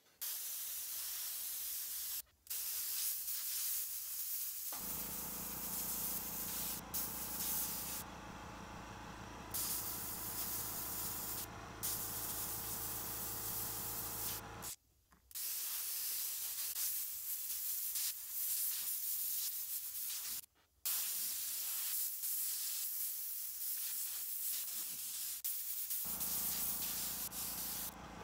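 Bottle-fed airbrush spraying black paint onto a paper towel: a steady hiss of air that stops briefly several times as the trigger is let off between strokes. A steady hum runs underneath for much of it.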